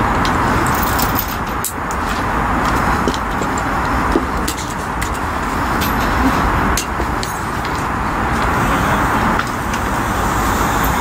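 Steady drone of road traffic, with a few light clicks from the camp stove being handled.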